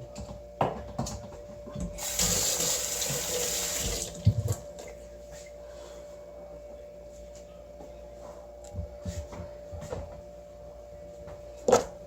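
Kitchen tap running in a brief burst of about two seconds, starting about two seconds in, followed by a knock; faint clicks and knocks around it.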